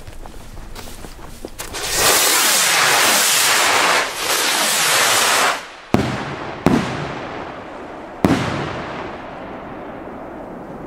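Large firework rockets hissing loudly as they climb for several seconds, then three sharp bursts with echoing tails: the first about six seconds in, the next under a second later, and the last about a second and a half after that.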